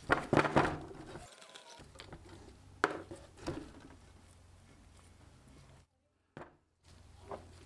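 Handling noises of brake caliper parts being assembled by hand: a cluster of sharp clicks and knocks in the first second, two more a few seconds in and one near the end, as a rubber-booted guide pin is worked into the caliper carrier.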